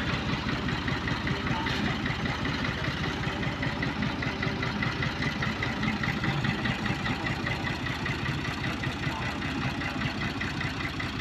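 Farm tractor engine running steadily at low speed with a fast, even low chugging pulse as the tractor moves slowly across grass.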